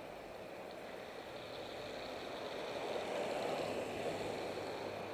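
Road traffic and wind rushing past a helmet-mounted camera on a moving bicycle. The noise swells about three seconds in as a vehicle passes close by in the adjacent lane, then eases off.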